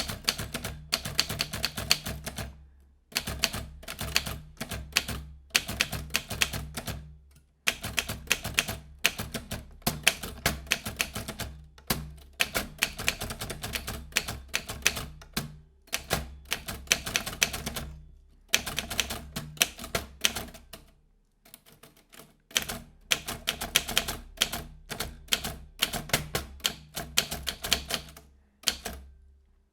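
Vintage typewriter being typed on: fast runs of sharp key strikes in bursts of a second or two, broken by short pauses.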